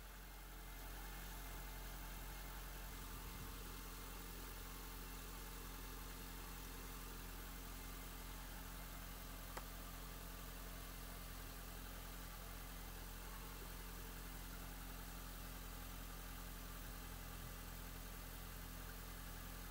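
A 2005 Honda Civic's 1.7-litre four-cylinder engine idling steadily, warming up so the thermostat opens and air is bled out of the freshly refilled cooling system. A single faint click about halfway through.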